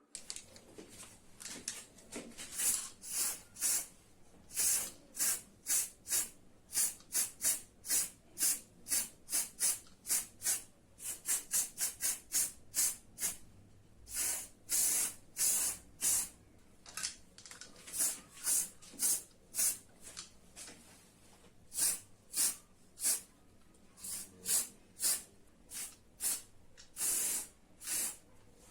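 An aerosol spray can being sprayed in many short, irregular hissing bursts of a fraction of a second each, with brief pauses between: spray-painting a restored metal part.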